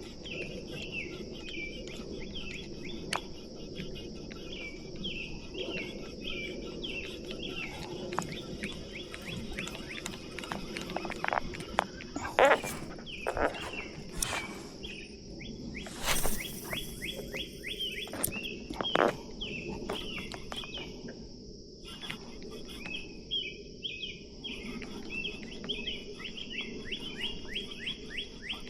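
Outdoor morning chorus: birds chirping over and over above a steady high-pitched insect drone, with a few sharp knocks and clatters in the middle, the loudest about halfway through.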